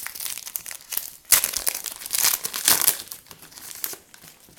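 Wrapper of a trading-card pack crinkling as it is torn open and handled, loudest from about one to three seconds in.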